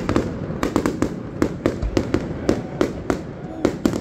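Aerial fireworks display going off in a rapid, irregular series of sharp bangs and cracks, several a second, as shells burst in the sky.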